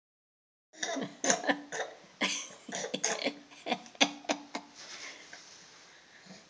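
Baby laughing in a string of about a dozen short, breathy bursts, starting about a second in and trailing off after four or five seconds.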